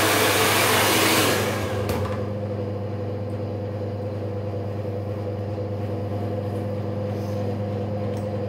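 Hand-held hair dryer blowing a loud rush of air, then cut off or turned down about a second and a half in, with a click from its switch. A steady, quieter hum carries on after it.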